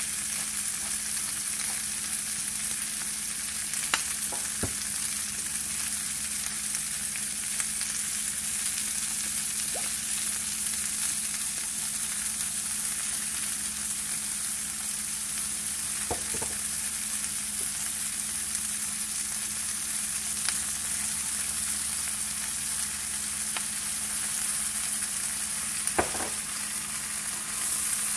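Shell-on shrimp sizzling in oil in a frying pan: a steady high hiss with a few scattered sharp clicks. It grows louder near the end as the shrimp are stirred with a wooden spoon.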